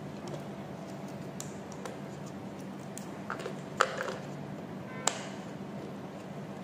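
Plastic clicks and knocks as a lithium-ion battery pack is handled and fitted into the battery bay of a Zebra QLN320 mobile label printer. There is a sharp click about four seconds in and another about a second later as the pack is pushed home.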